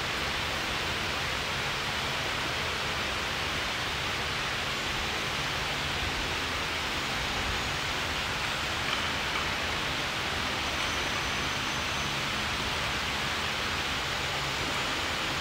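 Electric wall fan running: a steady hiss of moving air with a faint low hum underneath.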